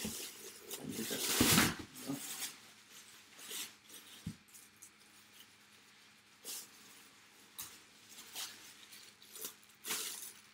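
Handling noises: rustling with a few light clicks and knocks, loudest from about half a second to two seconds in.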